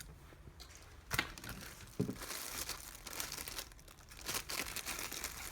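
Plastic packaging crinkling and rustling as it is handled, with two sharp clicks about one and two seconds in.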